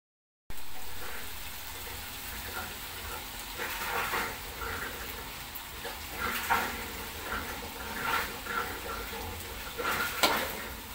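Spice paste frying in oil in a wok, with a metal spatula stirring and scraping the pan several times.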